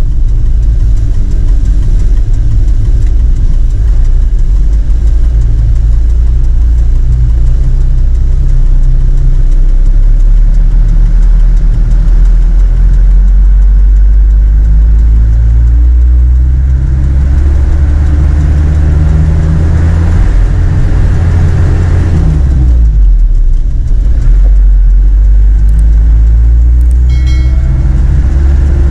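Truck's diesel engine running, heard from inside the cab: a deep, steady drone whose pitch climbs in the second half as it revs, drops away briefly a few seconds before the end, then rises again.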